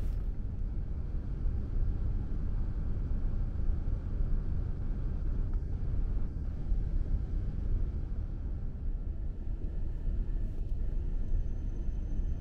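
Steady low rumble of a Shinkansen passenger cabin, with a faint high whine coming in near the end.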